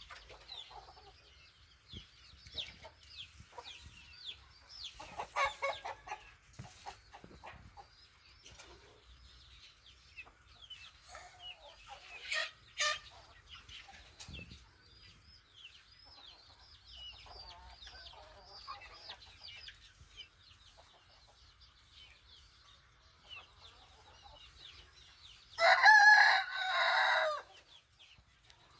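Chickens clucking, with many small high chirps throughout, and a rooster crowing loudly once near the end.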